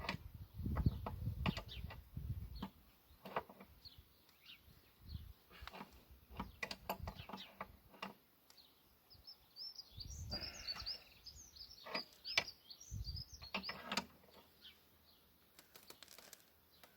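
Scattered clicks and knocks of hand tools working a hydraulic hose fitting, with dull bumps now and then. A bird chirps in a quick run of high notes from about nine seconds in.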